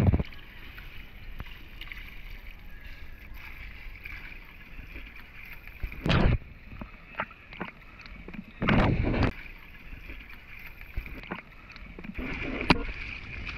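Swimming-pool water lapping and sloshing against a camera sitting at the waterline, with two louder splashes, about six and about nine seconds in.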